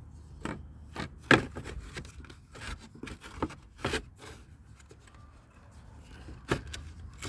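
Irregular plastic clicks, knocks and scraping as a Lexus RX rear bumper reflector assembly is worked up into its opening in the bumper, over a steady low hum.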